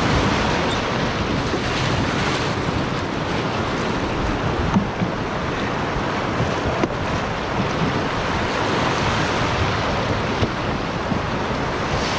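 Whitewater rapids rushing and splashing around an open canoe as it runs down a shallow river, a steady noise of churning water with wind buffeting the microphone. A few faint knocks come through the water noise.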